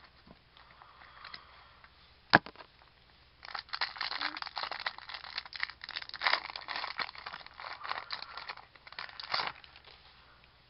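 A single sharp tap about two seconds in, then some six seconds of crinkling and tearing as a foil trading-card pack wrapper is ripped open and handled.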